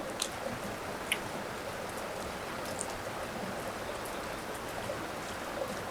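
Steady rain falling, an even hiss with a few scattered light ticks of drops.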